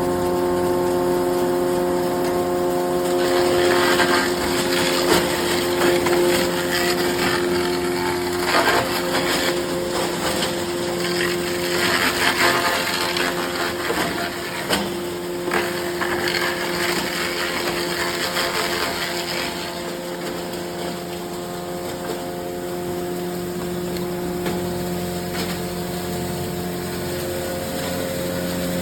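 Large sawdust machine (wood crusher) running with a steady hum. From about three seconds in until about twenty seconds, a noisy crackling clatter joins it as wood is ground, then the hum goes on alone.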